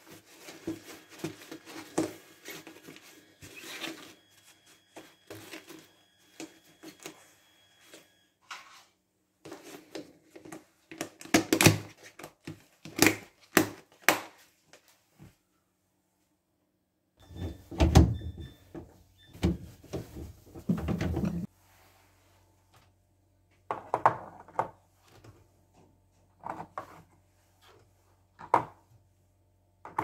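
Plastic food containers being handled on a kitchen counter: rustling and pressing at the start, lids and tubs knocked and set down in clusters of clicks, and a few sharp knocks near the end as eggs are set into a plastic egg tray.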